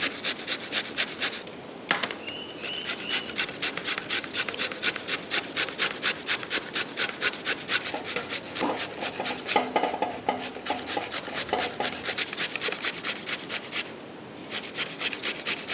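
Bottle gourd being grated by hand on a metal box grater, on the medium holes: an even run of rasping strokes, several a second, with short pauses about two seconds in and near the end.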